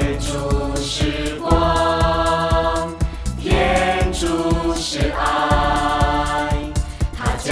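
Music with choral voices holding long notes over a steady beat.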